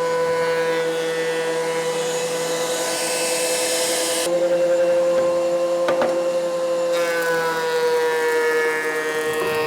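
Thickness planer running with a loud, steady motor whine as a board goes through; the pitch steps up slightly about four seconds in and sags again around seven seconds, with one sharp click near the six-second mark.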